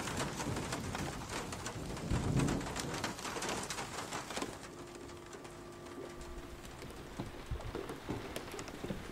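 Pigeons cooing, with a low coo about two seconds in, over a patter of faint clicks. A faint steady tone hums for a couple of seconds near the middle.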